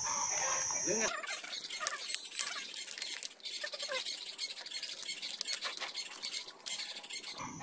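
Fresh banana leaves rustling and crackling as they are rolled up by hand around a fish, a dense run of small crisp crackles.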